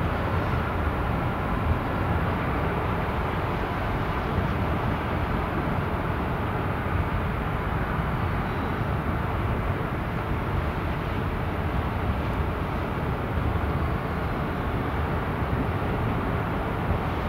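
Large ro-ro ferry's engines and thrusters making a steady low rumble while it manoeuvres slowly into its berth.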